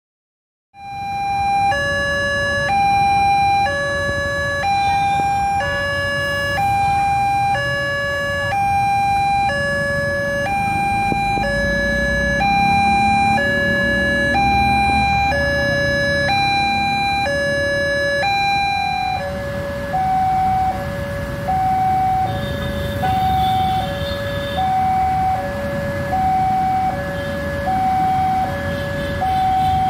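Railway level-crossing warning alarm: an electronic two-tone signal from the crossing's horn loudspeaker, a high and a low tone alternating steadily, with road traffic rumbling beneath. About two-thirds of the way in the tones turn quieter and alternate faster.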